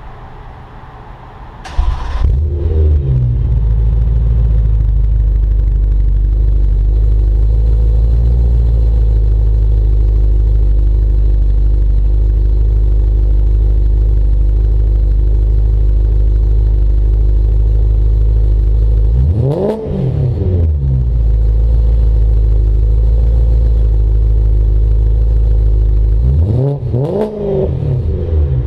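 BMW E92 M3's 4.0-litre V8 through an Akrapovič Evolution titanium exhaust with GT4 X-pipe and no catalytic converters, starting up with a sudden loud catch about two seconds in, then idling steadily. It is revved twice near the end, each rev rising and falling within about a second.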